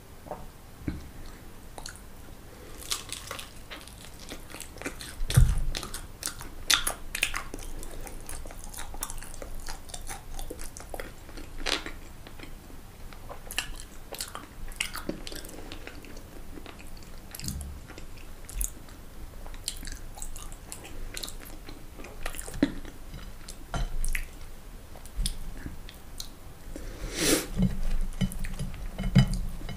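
Close-miked chewing and crunching of fried food, crisp crackles coming irregularly with each bite and chew, a few louder crunches about five seconds in and near the end.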